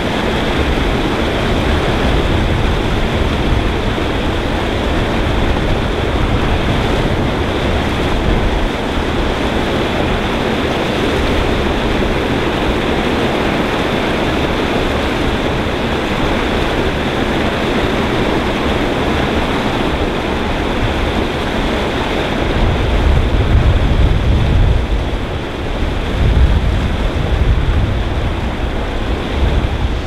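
Water pouring over a weir into a churning pool: a steady rush, with a deeper rumble swelling for a few seconds near the end.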